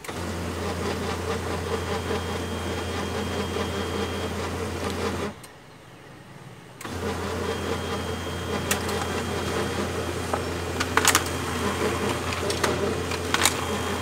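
HP LaserJet P2055 laser printer running two print cycles: a steady motor hum with a low drone for about five seconds, a pause of a second and a half, then a second run with a few sharp clicks near the end. It runs without the gear grinding, its worn swing gear newly replaced.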